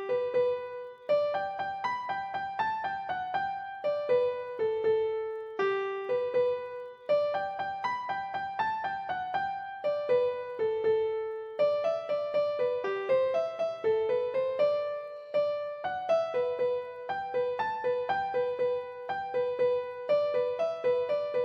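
Background music: a melody of plucked-sounding keyboard notes, each struck and quickly fading, in a steady run.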